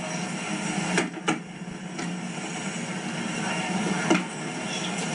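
Steady hiss of old Hi8 camcorder tape being played back, with a few sharp clicks and knocks: two close together about a second in, one at two seconds and one near the end.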